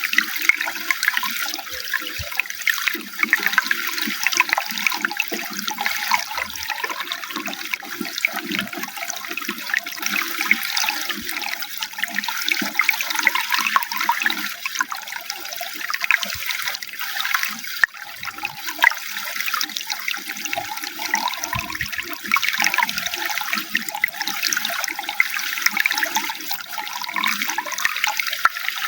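Running water, a steady splash and gurgle with no pauses.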